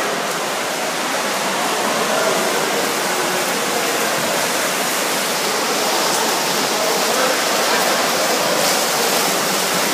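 Steady rushing noise of freestyle swimmers splashing and kicking through a sprint race in an indoor pool.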